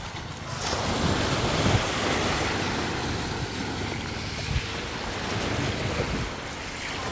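Small waves washing and surging up a sandy shoreline, swelling about a second in, with wind buffeting the microphone.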